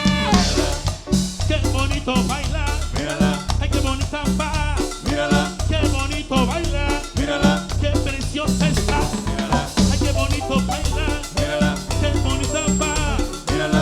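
Live band playing upbeat Latin dance music at a sound check, with drum kit, a heavy bass line and a melody over a steady beat.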